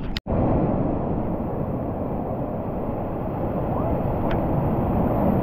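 Wind blowing across the microphone with the wash of surf behind it, a steady rumbling noise that drops out for a split second just after the start.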